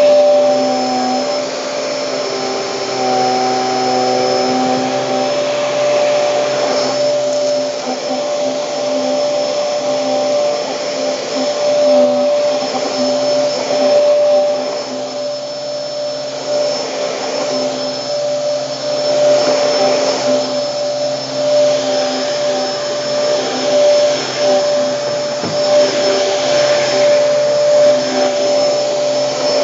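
Hoover Hurricane vacuum cleaner running on carpet, a steady motor hum with a high whine, its noise swelling and dipping every second or two as it works.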